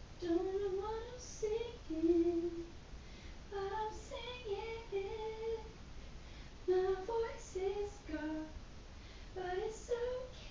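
A woman singing a melody softly without accompaniment, in several short phrases of held notes with pauses between them.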